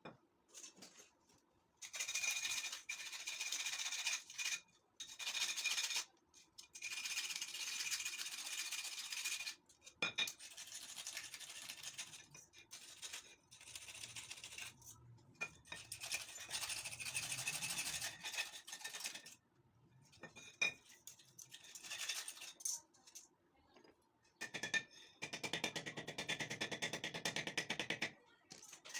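Rapid back-and-forth rubbing strokes on a hard part, heard in bursts of one to four seconds with short pauses, with a sharp click about twenty seconds in.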